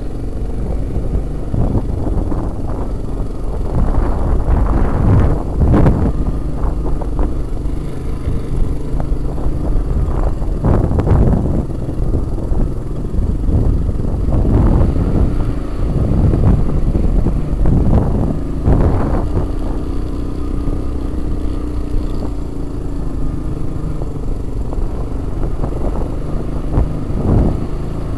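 Honda Big Red ATV engine running under load while ridden over a muddy trail and into shallow water, revving up in surges every few seconds.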